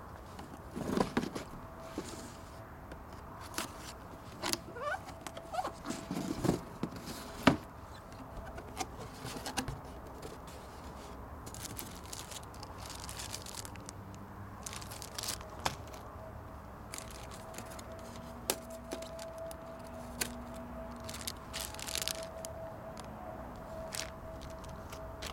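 Cardboard box and its packaging being opened and handled by hand: irregular rustling, scraping and knocks, the sharpest knock about seven seconds in.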